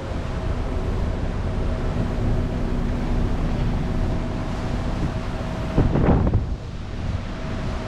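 Passenger ferry under way: a steady engine rumble with a faint hum, wind on the microphone and rushing water. A louder rush comes about six seconds in.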